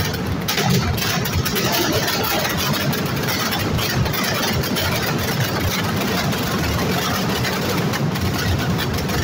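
Mascletà firecrackers going off in a dense, unbroken rapid-fire barrage: ground bangers and aerial firecrackers exploding so close together that they merge into one steady, loud rattling rumble.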